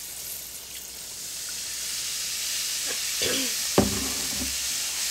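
Cold milk poured into a hot skillet of frying oil and browned flour, the base of a country gravy, sizzling in a steady hiss that builds over the first couple of seconds. A single sharp knock comes about four seconds in.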